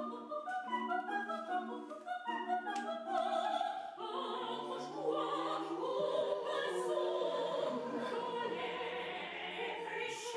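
Mixed vocal quartet singing unaccompanied in close harmony: quick, short detached notes for about four seconds, then held chords over a sustained low bass note that steps down lower near the end.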